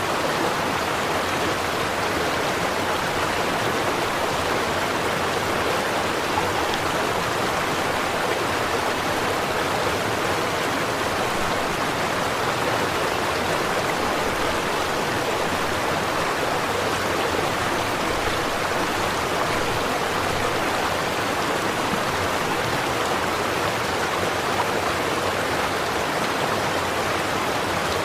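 Small stream flowing and burbling over stones, a steady, even rush of water.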